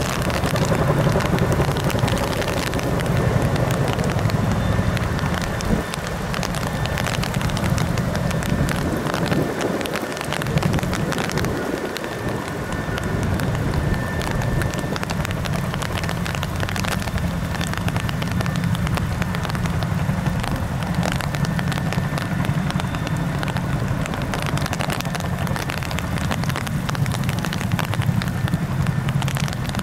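Boeing CH-47 Chinook helicopter running: a fast chop from its tandem rotors over a steady low rumble, with a faint high turbine whine in the middle.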